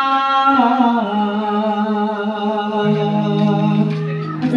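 A man singing a slow Javanese song through a microphone and PA, holding long notes with wavering slides between them. A second, lower held note joins about three seconds in.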